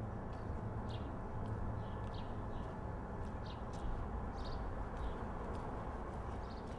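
Steady low rumble of outdoor street ambience, with short, high chirps or ticks coming irregularly about every half second.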